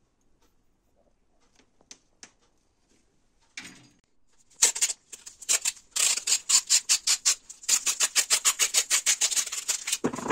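Rapid, rhythmic hand-worked rubbing strokes, several a second, which start about four and a half seconds in after a few light taps and clicks.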